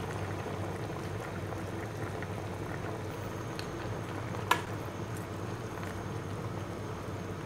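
Broth boiling steadily in an aluminium pot under a fresh load of sliced eggplant, a low even bubbling hiss. A single sharp clink about four and a half seconds in, as the spatula knocks against the pot.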